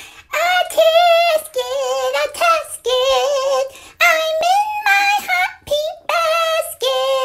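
A high voice singing a melody without accompaniment, in short phrases of held, wavering notes with brief breaks between them.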